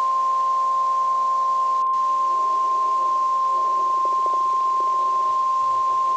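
Emergency alert attention tone: a single steady high-pitched tone at about 1 kHz, held without a break, with faint lower wavering tones underneath that grow from about two seconds in.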